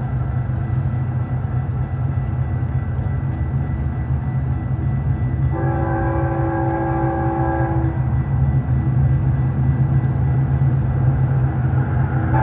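Diesel locomotive sound effect for an HO scale model train: a steady low engine rumble, with one horn blast of about two seconds about halfway through.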